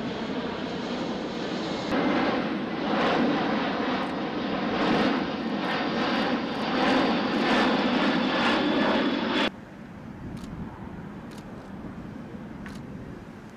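Jet noise from a C-17 Globemaster III's four turbofan engines as it flies overhead, a steady rushing sound with a high whine, stepping louder about two seconds in. It cuts off abruptly about two-thirds of the way through, leaving quieter outdoor background with a few faint clicks.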